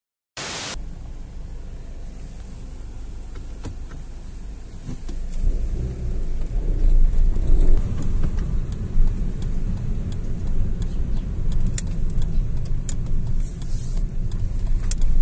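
Car interior road noise while driving: steady tyre and engine rumble with hiss, with scattered small clicks and rattles. It starts with a brief burst of noise and grows louder about five seconds in.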